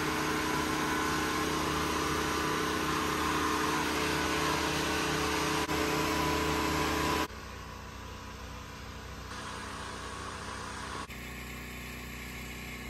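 Portable generator engine running steadily with an even hum. The level drops sharply about seven seconds in and the tone shifts again near the end.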